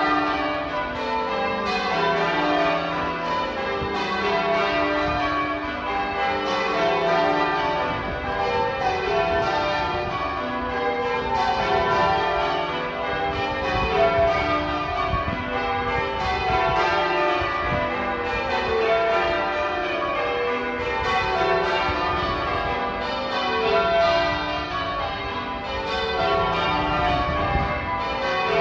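Manchester Cathedral's church bells being rung in change ringing: a continuous run of bell strikes following one another in even succession, the overall loudness swelling and dipping about every two seconds as each round of the bells comes through.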